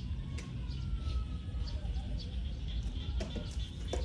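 A small wiry-coated dog giving a long, faint, drawn-out howl, with a couple of short sharp sounds near the end, over a steady low rumble.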